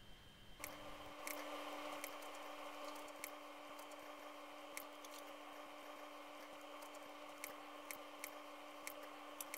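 Kitchen knife chopping a tomato on a ceramic plate, the blade knocking the plate in sharp clicks at irregular intervals. A steady faint hum starts about half a second in.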